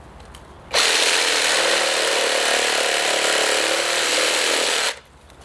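Reciprocating saw with a Diablo 9-inch pruning blade running steadily for about four seconds as it cuts through a tree branch, starting about a second in and stopping abruptly.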